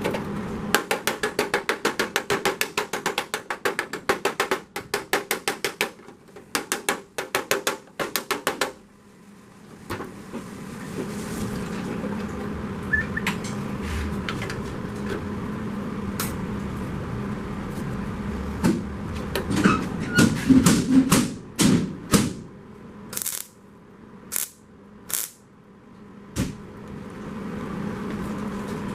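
Hand tools working a sheet-steel body panel: a fast, even run of metal taps, about four or five a second, then a steady hiss that slowly grows louder, then scattered single sharp knocks near the end.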